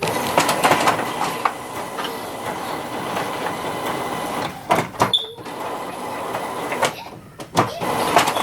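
Home printer running a print job, its mechanism whirring and clacking steadily, with two short pauses partway through.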